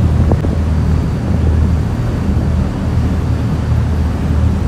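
Passenger boat's engine running with a steady low rumble, mixed with wind on the microphone and the rush of the churning wake.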